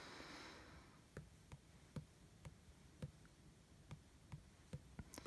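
Faint fingertip taps on the Akai MPC Live's touchscreen, typing on its on-screen keyboard: soft, uneven clicks about two a second.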